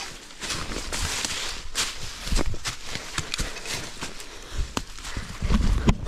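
Footsteps pushing through dense forest undergrowth, an uneven crunching of leaves and twigs with branches brushing past. A louder low thud comes just before the end.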